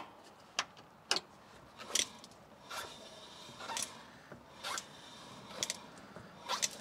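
A series of sharp clicks, about one a second, as the caravan's drum brake star-wheel adjuster is levered round tooth by tooth with a screwdriver. The shoes are being backed off so the wheel no longer drags.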